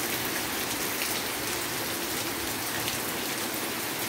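Light, steady rain falling and pattering on surfaces.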